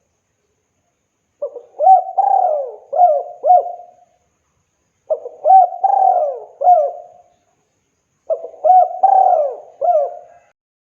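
Spotted dove (tekukur) cooing: three phrases a couple of seconds apart, each a run of four or five coos with notes that rise and fall.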